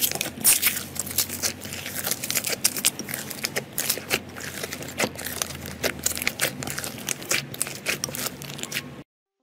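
Thick red slime being squeezed and kneaded by hand, giving a dense, irregular run of crackling and popping clicks. It cuts off suddenly near the end.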